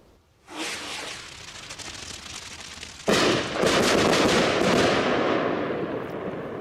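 Firework rocket from a 'Blitz & Donner' assortment: a hissing launch about half a second in, then a sudden loud burst about three seconds in followed by dense, rapid crackling that slowly fades.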